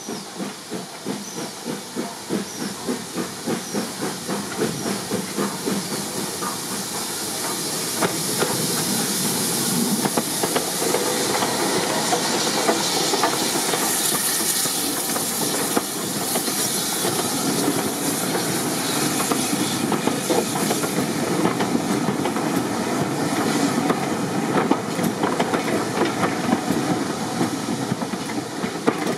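BR Standard Class 4 2-6-4 tank steam locomotive approaching and passing close by, its exhaust beats growing louder, with a strong hiss of steam as it goes past. Its coaches then run past with wheels clicking over the rail joints.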